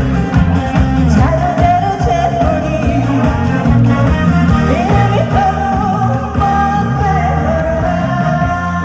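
A woman singing a song live into a microphone over a loud backing track with a steady beat and bass.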